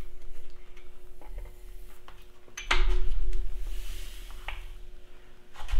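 Metal clinks and knocks from the pistons and connecting rods of a Farmall Super M's four-cylinder engine being pulled out of their bores and handled. A louder, heavy clunk with a dull thud comes about two and a half seconds in, and a faint steady hum runs underneath.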